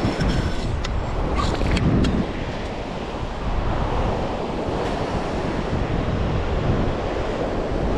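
Surf washing on a sandy beach, with wind buffeting the microphone. A few short clicks in the first two seconds.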